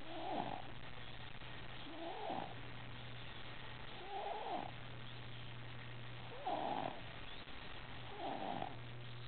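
A baby snoring in an even rhythm: five snores about two seconds apart.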